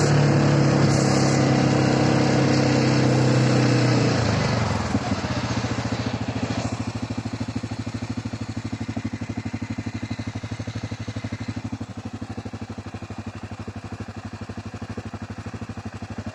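CFMoto 520L ATV's single-cylinder engine running at steady speed, then the revs drop about four seconds in as it slows, and it settles into a steady idle for the rest.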